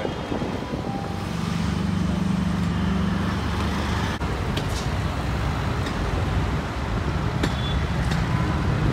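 Road traffic: a steady din of passing engines from auto rickshaws and cars, with a low engine drone standing out for a couple of seconds near the start.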